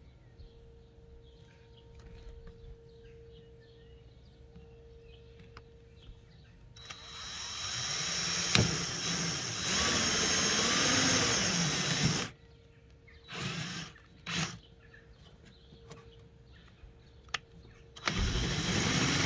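Electric drill boring up through a gutter-trim side-skirt extension on a BMW E92's sill. Quiet for the first several seconds, then the drill runs for about five seconds with its pitch wavering, gives two short blips, and starts again near the end.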